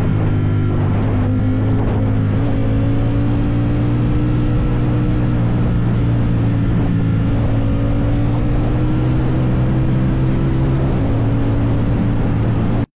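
Motorcycle engine running at a steady cruise while riding, its note holding pitch with small rises in revs, over wind and road noise. The sound cuts off abruptly near the end.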